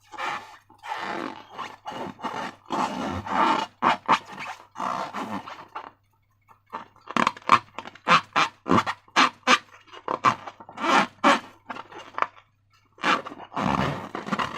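Slime being squeezed and worked by hand: a run of irregular wet squelches and sticky crackles, with two short pauses.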